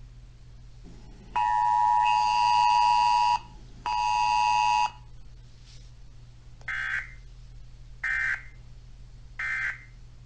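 Modern WEA emergency alert attention tone: a loud two-note blare of about two seconds, a short gap, then a second blare of about one second. Three short, higher beeps follow about a second and a half apart.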